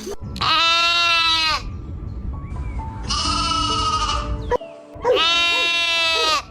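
Three long bleats from sheep-or-goat livestock, each just over a second long with a wavering pitch, over soft background music.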